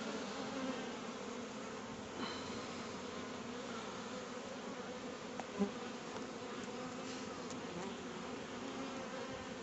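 Honeybees humming steadily around the hives of an apiary, colonies flying actively after wintering. A short louder blip comes a little past halfway.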